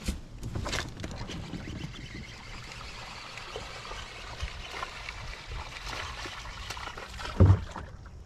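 Water splashing and churning as a hooked largemouth bass thrashes through the weed-matted surface, with a loud thump about seven and a half seconds in.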